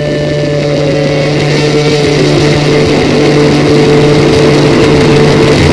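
Engine of the personal watercraft that pumps water to a water jetpack, running steadily with a low hum and growing gradually louder as it is throttled up, its pitch shifting a little about two seconds in.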